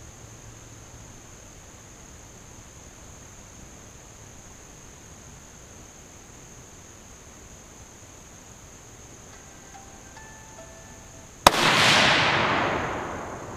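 A single shot from a Tikka T3X Lite Veil Wideland bolt-action rifle in .308 Winchester about eleven and a half seconds in: a sharp crack, then the report echoing and dying away over about two seconds.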